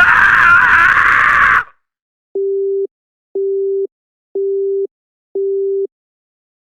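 A loud, harsh burst of noise with a wavering pitch, cut off after about a second and a half. Then four steady, low telephone busy-signal beeps follow, about one a second: the line has gone dead.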